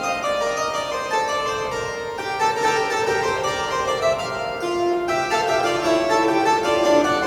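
Restored historic church pipe organ playing a quick passage of several voices at once, the notes changing a few times a second.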